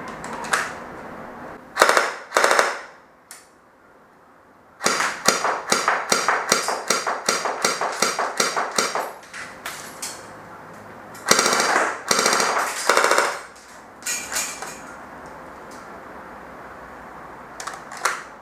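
Cyma CM.121 Desert Eagle airsoft electric pistol, fitted with a LiPo battery, firing in bursts. There are a few short bursts, then a long string of rapid shots lasting about four seconds, then more short bursts.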